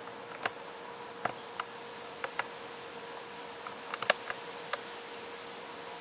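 About a dozen sharp, irregular clicks and ticks over a steady hiss with a faint hum, the loudest in a quick cluster about four seconds in.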